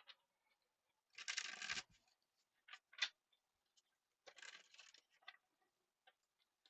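Tarot cards being handled and shuffled: two short papery rustles, each under a second, with a few sharp taps in between, the loudest about three seconds in.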